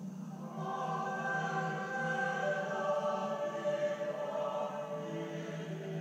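Choir singing a slow liturgical chant, played back through a television's speaker. The voices come in about half a second in and hold long notes over a steady low drone.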